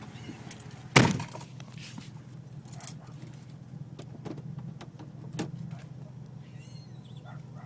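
A vehicle engine idling steadily. There is one loud, sharp knock about a second in and a lighter one at about five and a half seconds.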